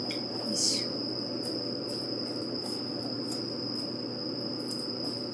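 Chopsticks stirring vegetables in rice-flour batter in a plastic bowl: soft scrapes and clicks, with one brighter scrape near the start. A steady high-pitched whine and a low hum run underneath.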